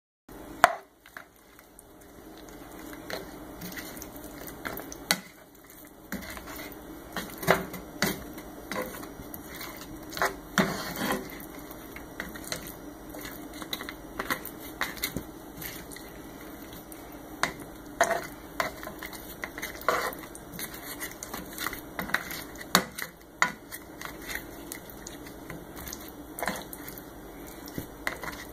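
A cooking utensil repeatedly clicking and scraping against a skillet as chicken and vegetable stir fry is stirred through its sauce, over a steady sizzle from the pan.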